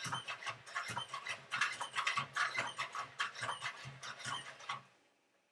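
NAO humanoid robot walking: a rapid, irregular run of clicks over a low whir from its leg joint motors and steps, stopping about five seconds in.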